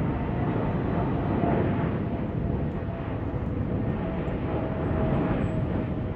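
Airbus A380's four jet engines on approach, gear down, heard from below as a steady rushing drone with a faint whine.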